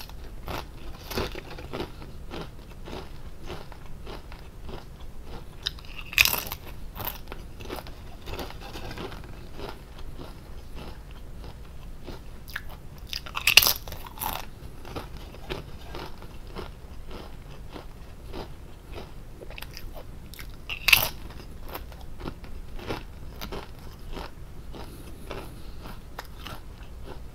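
Lay's potato chips being bitten and chewed: four loud crunching bites about seven seconds apart, with quieter crunchy chewing in between.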